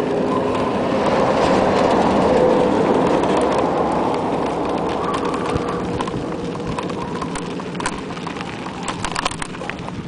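GT Avalanche 2.0 mountain bike ridden over a rough desert dirt track: a steady rush of wind and tyre noise over the gravel, with scattered rattling clicks and knocks from the bike, fading somewhat toward the end.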